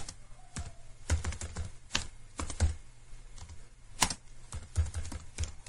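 Typing on a computer keyboard: irregular keystroke clicks in short quick runs with brief pauses, one louder click about four seconds in.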